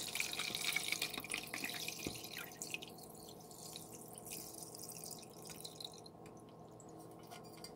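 Soup stock pouring from a pot through a fine-mesh strainer into a bowl, splashing and trickling. The flow is heaviest in the first two to three seconds, then thins to a light trickle and scattered drips.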